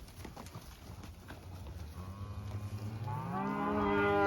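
One of the cattle mooing: a single long bawl that starts low about two seconds in and rises steeply in pitch near the end.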